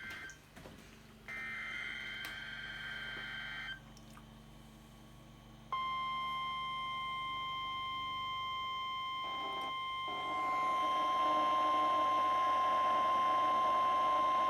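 NOAA Weather Radio alert signal for a Required Weekly Test. It starts with a short burst of warbling two-tone SAME digital header data. After about two seconds of quiet comes the steady 1050 Hz Weather Radio warning alarm tone, which grows louder about ten seconds in.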